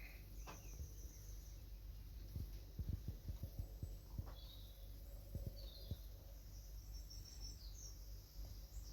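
Faint songbird chirps and short high trills in woodland. A cluster of soft low knocks comes about three seconds in, and a couple more follow later.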